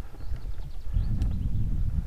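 Wind buffeting an action camera's microphone with its wind-noise filter off, over the low rumble and rattle of a mountain bike rolling down a dirt and stone trail. The rumble gets louder about a second in, with a sharp knock just after.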